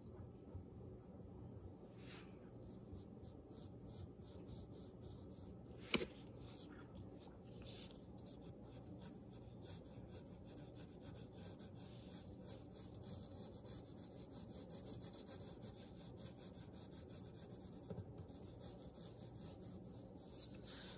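Small graphite golf pencil scratching on paper in quick short strokes, drawing lines and then shading with the side of the lead. The strokes are faint, with one sharper tap about six seconds in.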